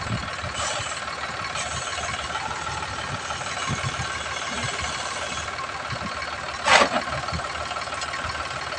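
Sonalika DI 745 tractor's diesel engine running steadily while the tractor sits stuck in sand, with a short loud burst of noise near the end.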